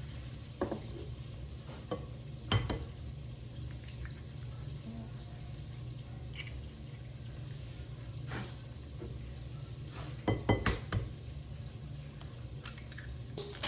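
Chicken tenders sizzling as they fry in oil, over a steady low hum, with a few sharp knocks of utensils on a mixing bowl early and a quick cluster of clatter about ten seconds in.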